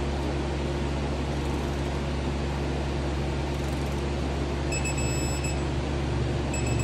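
A digital torque wrench beeps twice, about two seconds apart near the end, as it reaches its 21 ft-lb setting on the last bolts of a star-pattern torque sequence. A steady low hum runs underneath.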